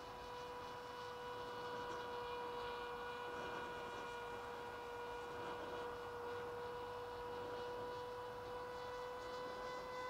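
Electric motor and propeller of an AR Pro FPV plane in flight, heard from the ground as a faint, steady buzzing whine at one held pitch.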